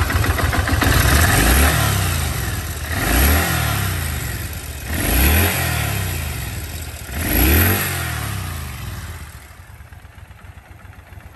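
Kawasaki Vulcan 1500 Classic's water-cooled four-stroke V-twin engine idling and revved four times with short throttle blips about two seconds apart, each rising and falling back, then settling to a quieter idle near the end. The engine is in good running order.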